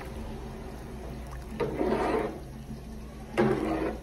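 Water pouring and splashing into a cooking pot in two short bursts, the longer about a second and a half in, over a steady low hum.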